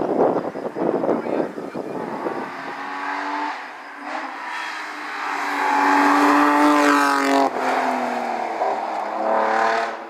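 BMW 3 Series (E36) rally car's engine under hard acceleration as the car climbs past: rough and choppy for the first couple of seconds, then a rising engine note that drops sharply at an upshift about seven and a half seconds in and climbs again.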